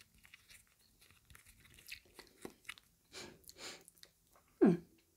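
Soft lip smacks and small wet mouth clicks as freshly applied tinted lip balm is pressed and worked between the lips, with a short voiced hum falling in pitch near the end.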